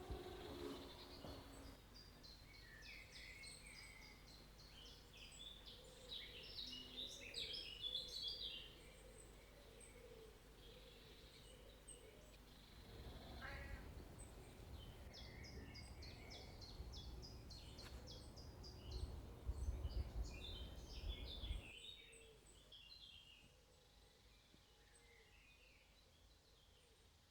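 Small birds twittering and singing faintly in short, high bursts of song, with a low rumble in the middle.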